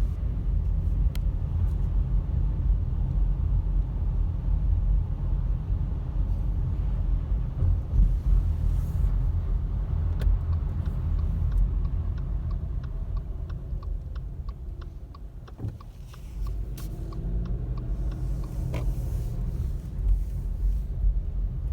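Car interior noise while driving: a steady low rumble of engine and tyres on wet road, easing off briefly about two-thirds of the way through, with a short run of faint ticks in the middle.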